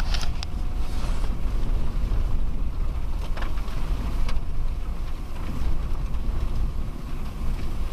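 Vehicle driving on a rough dirt road, heard from inside the cabin: a steady low rumble of engine and tyres, with occasional knocks and rattles.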